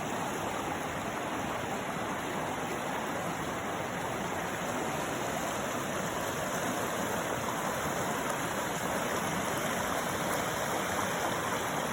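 River water rushing and burbling steadily over rocks, a continuous even rush.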